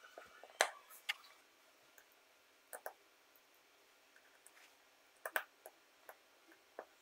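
Small metal clicks and taps as steel pins are handled with tweezers and set into the planetary gear carrier of a DeWalt DW052 impact driver: scattered single clicks, a few in quick pairs, with pauses between.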